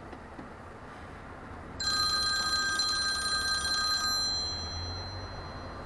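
An electronic ringing tone, a fast trill on a few steady high pitches, sounds for about two seconds, starting abruptly nearly two seconds in and cutting off, over steady low car and road rumble.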